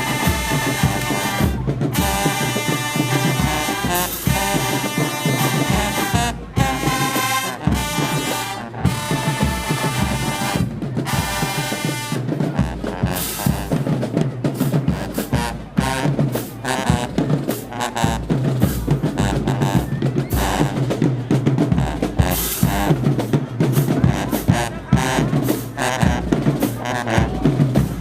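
Marching band playing: the brass section plays loud held chords broken by sharp stops, then about twelve seconds in the drum line takes over with a fast cadence of snare and bass drums.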